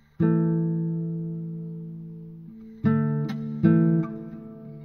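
Background music: an acoustic guitar strums a chord that rings out and fades slowly, then two more strums follow in quick succession.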